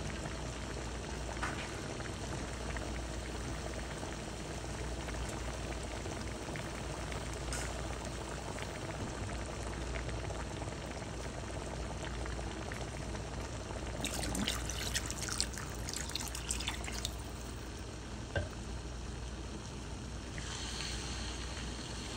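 Pot of rice and chicken gizzards in broth simmering on the stove: a steady bubbling hiss, with a patch of crackling pops about two-thirds of the way through. Near the end a silicone spoon starts stirring through the pot.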